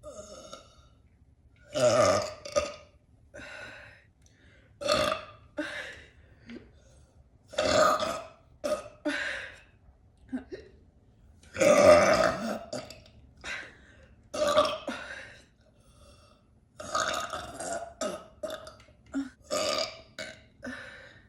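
A person burping over and over: a long run of loud belches, about a dozen or more, each a second or less, with short pauses between. The loudest comes about halfway through, and a quick cluster of several comes near the end.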